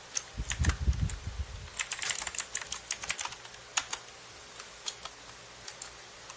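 Typing on an HP GK100 mechanical keyboard with brown switches: a fast run of key clacks with dull low thumps in the first second, then scattered keystrokes that thin out toward the end.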